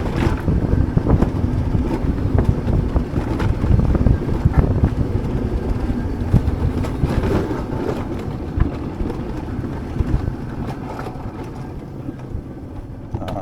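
Alpine coaster sled running along its metal rails: a steady rumbling clatter full of small knocks, easing off gradually near the end.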